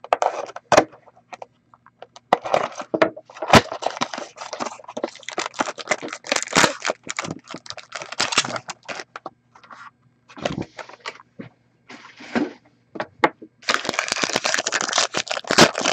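A hobby knife slitting the seal of a sealed trading-card box, then cardboard flaps and packaging being opened and torn, with irregular crackling and tearing. The crinkling grows dense near the end.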